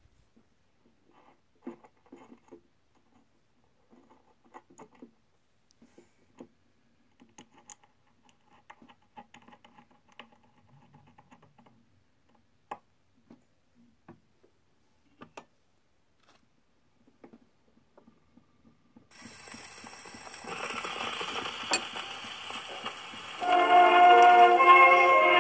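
Scattered small clicks and knocks of handling at an acoustic phonograph. About 19 seconds in, the steel needle meets the spinning 78 rpm shellac record and the surface hiss begins, growing louder. About 23 seconds in, the record's orchestra starts playing through the horn, with the acoustic recording's thin, hissy sound.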